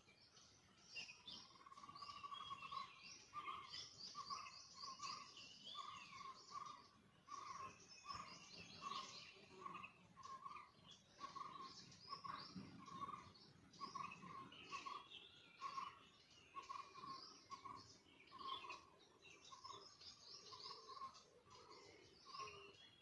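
Faint chorus of wild birds chirping and trilling, with one bird repeating a short note at a steady pace of about two a second.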